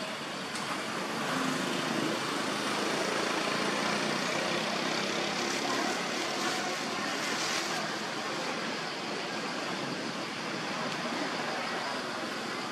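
Steady outdoor background noise: a constant, even roar with no distinct events.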